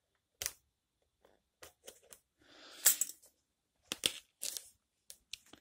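Scissors snipping and scraping at the seal on a cardboard keyboard box: scattered sharp clicks, with two longer scratchy rasps about three and four seconds in.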